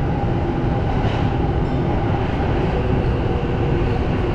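Tokyo Metro Marunouchi Line subway train running along the track: a steady rumble of wheels and running gear with a faint steady hum.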